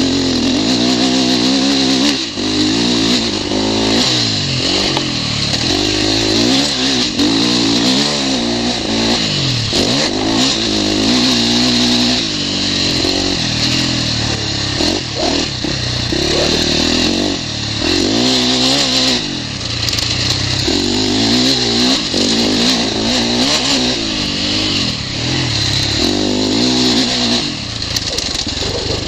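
KTM 450 four-stroke single-cylinder dirt bike engine revving hard and easing off over and over as the rider works the throttle along a trail, its pitch climbing and dropping every couple of seconds.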